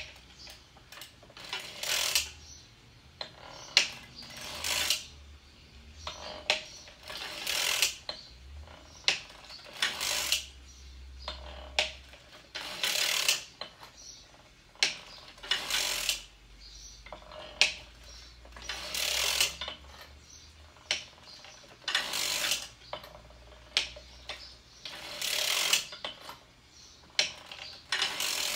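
Circular sock machine cranked in short strokes: its latch needles clatter through the cams about every three seconds, with sharp clicks in between.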